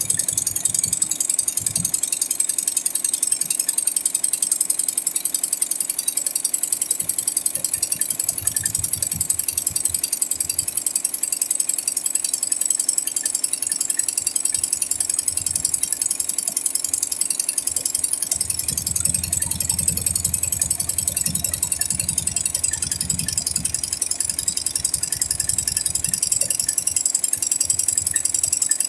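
Single-head, eight-needle computerised embroidery machine stitching: a fast, even mechanical clatter of the needle bar. A lower rumble joins it for several seconds past the middle.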